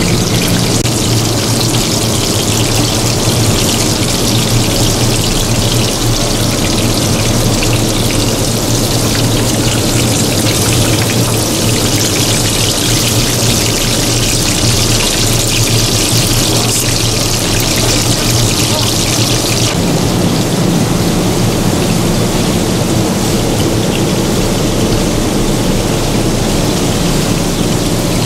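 Battered fish fillets shallow-frying in hot oil in a skillet: a steady, loud sizzle that thins a little about twenty seconds in.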